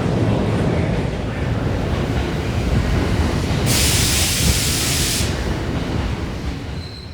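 A train running with a loud, steady low rumble. About halfway through comes a burst of hissing that lasts about a second and a half.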